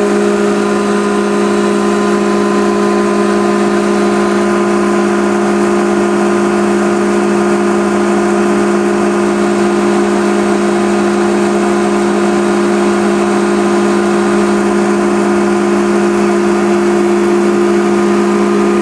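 Atlas Copco GA-11 rotary screw air compressor with its 15 hp electric motor running loaded, sound-enclosure panels off, building up pressure in its tank. A loud, steady hum made of a low drone and a higher tone above it, unchanging throughout.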